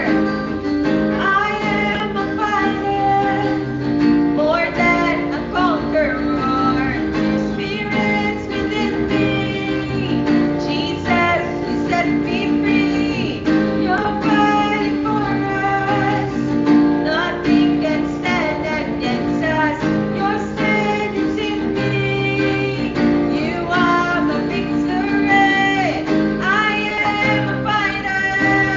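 A woman singing a contemporary worship song while strumming chords on an acoustic guitar.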